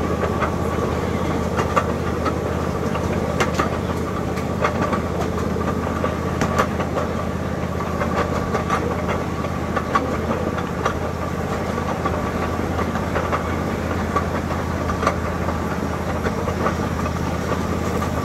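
Miniature ride-on train running steadily along its track: a constant engine drone with scattered clicks and clacks from the wheels and cars.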